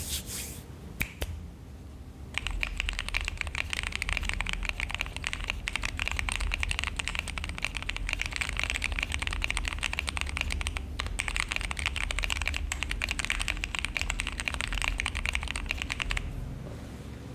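Fast typing on a mechanical keyboard fitted with DCS-profile keycaps: a few single key clicks, then a long rapid run of keystrokes with a brief pause about two-thirds in, stopping shortly before the end.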